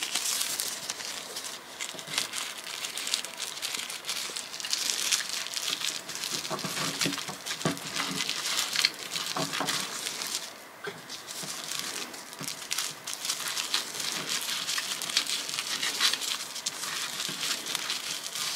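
Thin polyethylene plastic bag crinkling and rustling as it is rolled up tightly by hand around a paracord loop, with many small crackles; it eases off briefly about ten seconds in.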